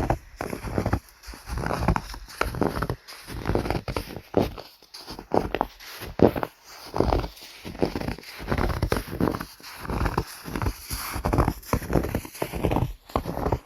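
Footsteps crunching in snow at a steady walking pace, about one and a half crunching steps a second.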